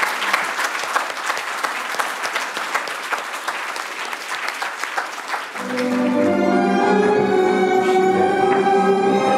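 Audience applauding with many quick claps; about five and a half seconds in, the clapping cuts off and orchestral music with bowed strings starts abruptly.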